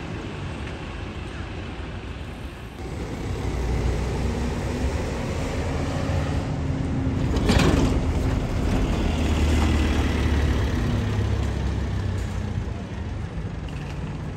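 Single-deck bus driving past close by in street traffic: its engine rumble grows louder from about three seconds in and peaks about halfway through, with a brief hiss as it passes, then fades as it moves away.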